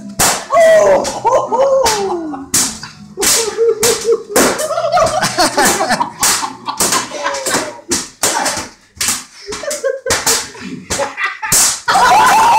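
Towels being flicked so they snap, a long run of sharp cracks about two a second. Between them come men's yells and laughter.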